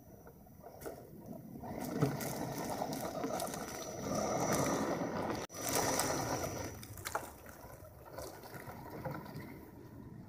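1/10-scale Axial SCX10 Trail Honcho RC crawler truck driving over a dirt trail covered in leaves and twigs. Its electric motor and drivetrain whine with a thin steady high tone while the tyres crunch and scrape. The sound grows louder from about two seconds in and eases off in the last few seconds.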